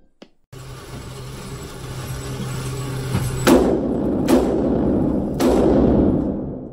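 Smith & Wesson 629 .44 Magnum revolver fired in an indoor range: three sharp shots about a second apart in the second half, each trailing off in echo, over a steady background hum.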